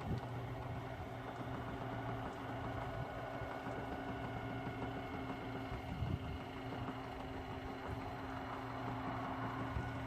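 A steady motor hum, like an engine idling, with a brief low knock about six seconds in.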